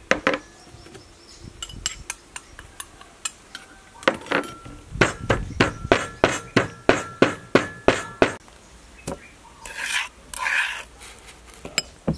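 Wooden pestle pounding chili and garlic in a clay mortar. The strikes are irregular at first, then settle into a steady run of about three a second for several seconds, each with a slight ring from the mortar.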